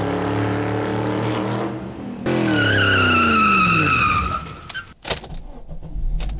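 Cartoon car sound effects: a car engine running steadily, then a high tire screech as the car brakes to a halt, the engine pitch sliding down. A few short clicks and knocks follow near the end.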